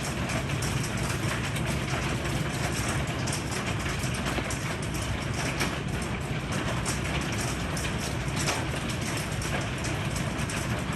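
Heavy rain pouring down steadily, with many small sharp ticks of drops striking surfaces over a constant low rumble.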